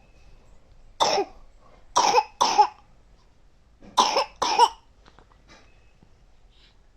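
A sick child coughing five times: one cough, then two pairs of quick coughs with short pauses between.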